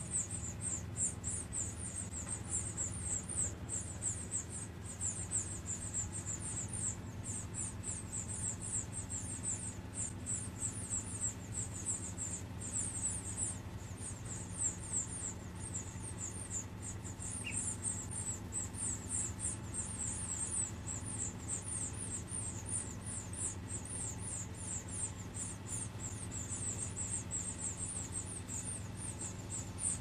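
Nestling birds begging: a continuous run of thin, high squeaky peeps, about three a second, over a steady low hum.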